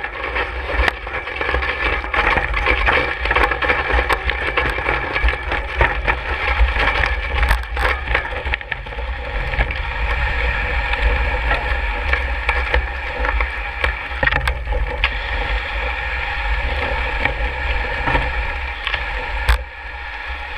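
Road bike moving over a rough dirt and packed-snow fire road: a continuous rattle and crunch of tyres and frame over a low rumble, easing off briefly near the end.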